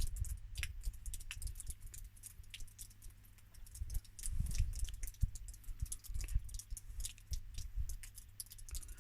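Snowstorm wind buffeting the microphone in irregular low rumbling gusts, with many scattered sharp ticks over the top.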